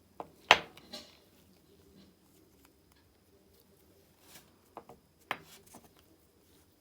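Sharp clicks and knocks of small hard parts being handled and set down on a workbench, in two clusters: a few in the first second, the loudest about half a second in, and several more from about four and a half to six seconds in.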